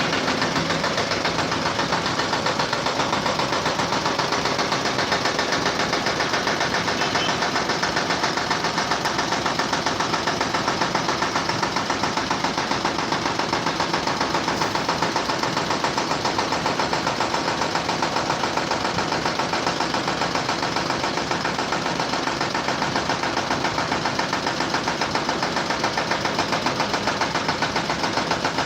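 A machine running steadily with a fast, even pulsing rhythm that doesn't change.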